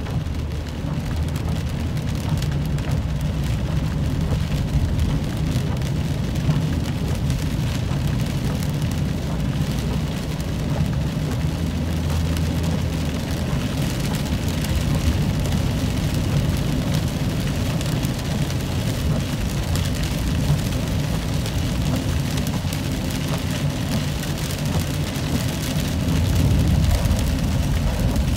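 Rain hitting a car's windshield and roof, heard from inside the moving car over a steady low rumble of road and engine noise. It gets a little louder near the end.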